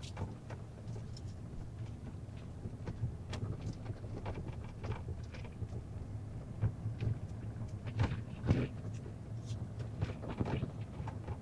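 Car cabin noise while driving: a steady low engine and road rumble, with scattered small clicks and knocks.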